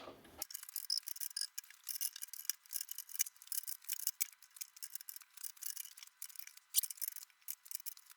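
Spanner turning the height-adjustment screw of a steel thicknesser stand to wind it down: a run of light, irregular metallic ticks and clicks, several a second, sounding thin with no low end.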